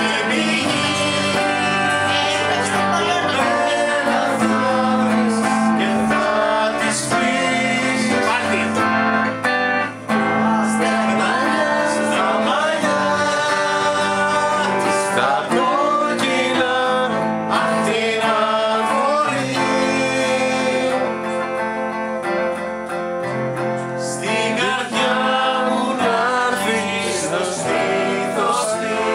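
Amateur live band music: electric guitar, acoustic guitar and keyboard playing together under singing.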